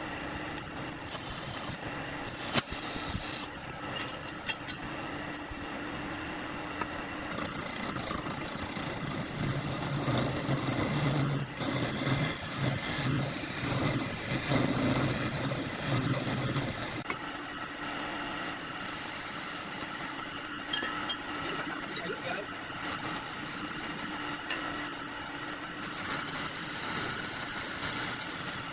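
A motor running steadily with a constant hum. A deeper hum joins about ten seconds in and drops away around seventeen seconds in.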